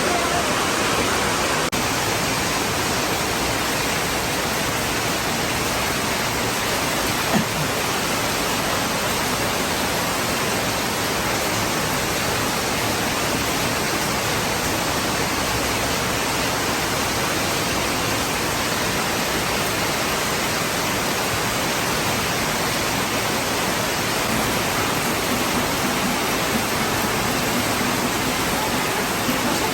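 Heavy tropical rain pouring down as a steady, even hiss that never lets up. A single brief knock sounds about seven seconds in.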